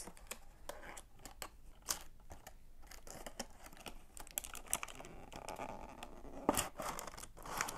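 Cardboard earbud box being opened close to the microphone: irregular tearing, crinkling and clicking of the paper packaging and its tab, with a few sharper crackles near the end.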